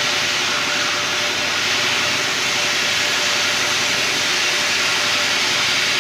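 A steady, loud hiss with a faint hum underneath.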